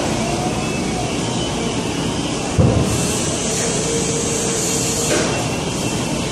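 Five-axis CNC router's Colombo spindle cutting over steady machine noise. A thump comes about two and a half seconds in, then a steady whine with a high hiss for about two seconds that stops sharply.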